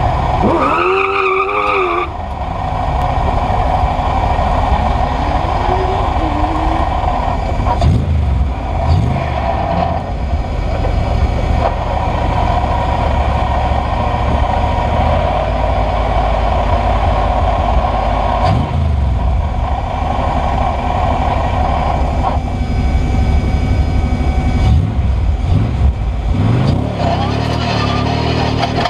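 Westfield V8 sports car's V8 engine heard from the cockpit under hard acceleration. The revs climb quickly at the start, then keep running hard with several gear changes, each a brief dip in pitch.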